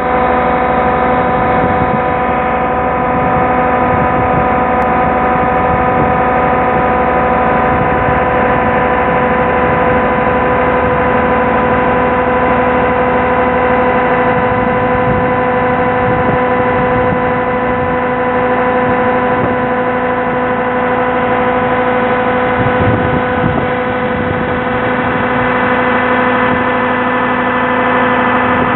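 Tractor engines running at a constant speed, driving a BAUER SX 1000 Magnum slurry pump and an Ørum slurry mixer. A steady drone with a fixed whine over it.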